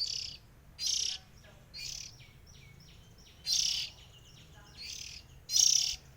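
Oriental magpie-robins (kacer) giving harsh, rasping calls about once a second, the loudest near the end, with short fainter notes between them.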